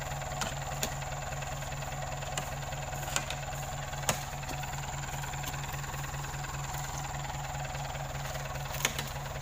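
Lorry engine idling steadily with an even low pulse. A few short sharp thuds come over it as heavy oil palm fruit bunches are thrown onto the lorry bed.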